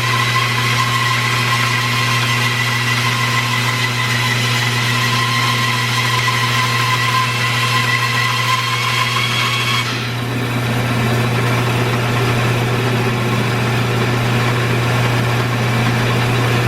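Bandsaw running steadily with a low motor hum while its blade resaws a green maple log on a sled. A higher steady whine over the hum stops about ten seconds in, and the hum carries on.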